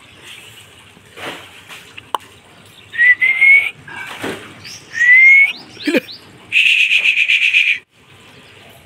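A person whistling: two rising whistles about three and five seconds in, then a quick run of short chirped whistles and a warbling, trilled whistle held for over a second near the end.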